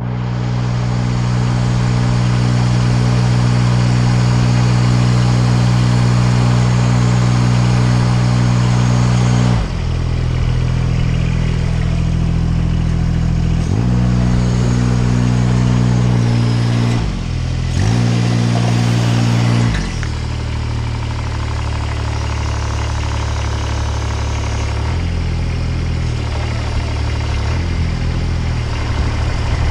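Spider lift's engine running steadily, its speed stepping down and back up several times as the hydraulic outrigger legs are set onto their pads.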